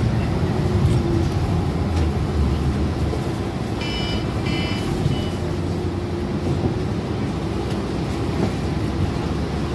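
Steady engine and road noise heard from inside a moving MTA city bus. Two short electronic beeps sound about four seconds in.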